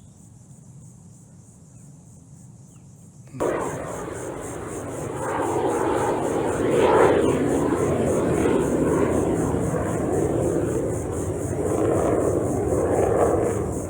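Blue Angels military jet taking off, its engine noise coming in suddenly about three seconds in and swelling to a loud, steady roar that holds without a clear pitch.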